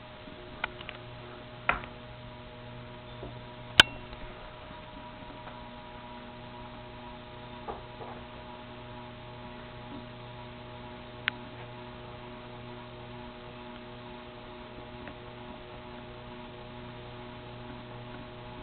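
Sierra Victorian ceiling fan's motor humming steadily on low speed, run from a variable speed control. A few sharp clicks stand out over the hum, the loudest about four seconds in.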